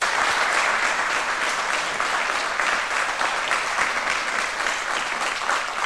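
A large audience applauding, many hands clapping at once; it starts suddenly.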